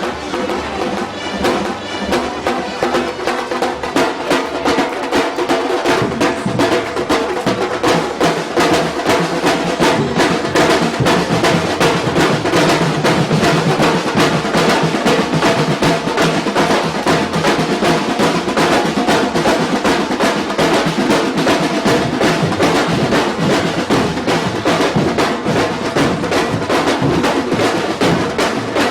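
Afro-Brazilian percussion ensemble playing a fast, dense drum rhythm with many drums struck together, growing louder over the first several seconds.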